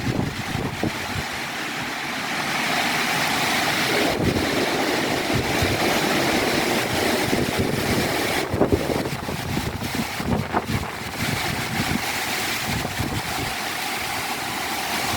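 Gusty wind rushing through garden plants, swelling about two seconds in, with the wind buffeting the microphone in low rumbles.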